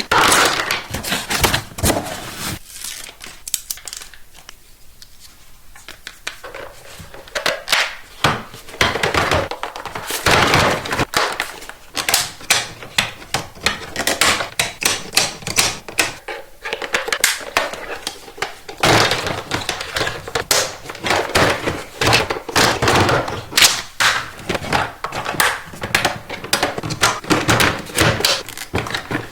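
Hands handling plastic toy track pieces and packaging: a dense run of clicks, taps, knocks and crinkling, with a quieter stretch a few seconds in.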